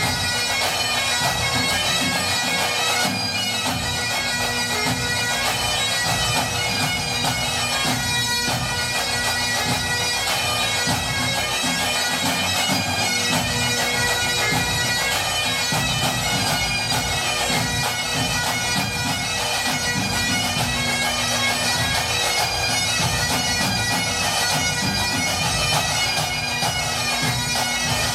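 Highland bagpipes playing a tune over their steady drones, at an even loudness throughout.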